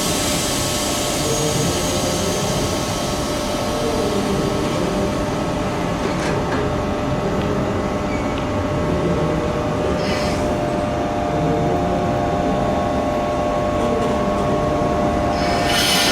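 CP 3150-series electric train at the station, its equipment giving a steady hum with several held whining tones. There is a short hiss of air about ten seconds in, and a louder hiss near the end.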